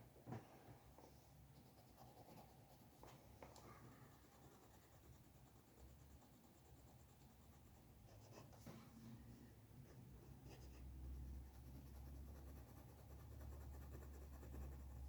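Faint scratching of a drawing tool on paper, with a few light ticks and taps and a soft low rumble that swells in the second half.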